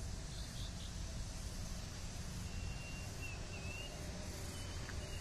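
Steady outdoor background noise with a low rumble, and a faint, thin, high wavering chirp about halfway through.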